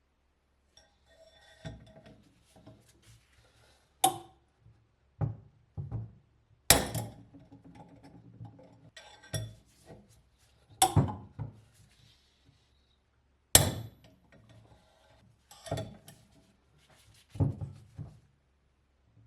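A series of sharp knocks and clinks, typical of metal parts and hand tools being handled and set down on a workbench, with small rattles between the louder strikes.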